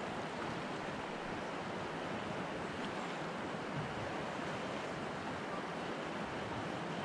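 Steady rush of a fast-flowing river, an even wash of water with no single splashes standing out.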